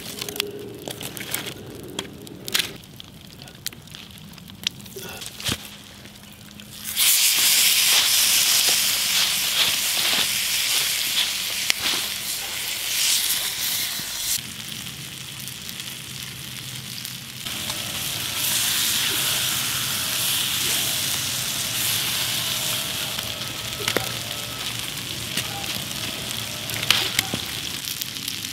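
A campfire crackling with sharp clicks and knocks as the coals are poked with a stick. About seven seconds in, a loud, steady sizzle starts suddenly: a flattened whole chicken cooking on a hot rock set among the coals.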